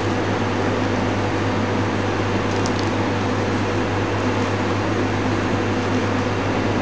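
Steady low mechanical hum with an even hiss over it, from a fan-driven kitchen machine running constantly.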